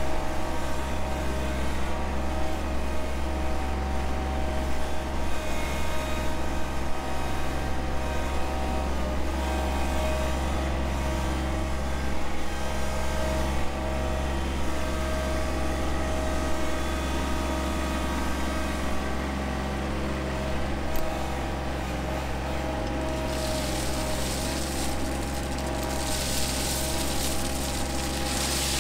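John Deere 2025R compact tractor's three-cylinder diesel engine running steadily from the driver's seat. For the last few seconds a rushing, hissing noise comes in over the engine.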